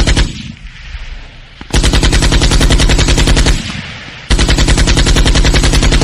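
Recorded machine-gun fire played loudly through an animal and bird repeller's loudspeaker as a scare sound: a short burst at the start, then two long bursts of rapid shots with a brief gap between them.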